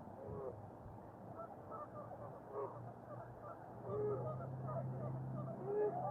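Birds calling, a scatter of short calls, with a steady low hum joining about two and a half seconds in.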